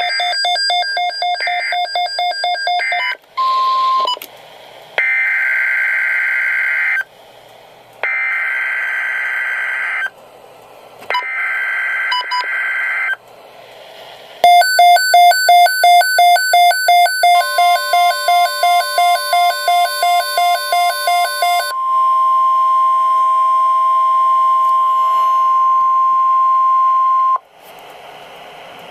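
Emergency Alert System sequence on NOAA Weather Radio: rapid beeping, then three buzzy two-second bursts of SAME digital header data, then a fast beeping alarm that a steady 1050 Hz warning alarm tone joins and outlasts. The tone holds alone for about five seconds and cuts off suddenly.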